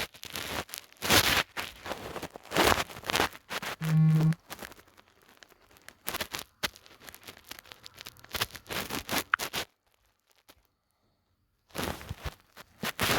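Irregular bursts of rustling, scraping noise, one every second or so, with a short low buzz about four seconds in.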